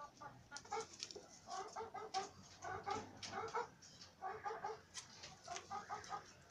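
Chicken clucking in short runs of three or four quick notes, repeated about five times, with a few sharp clicks in between.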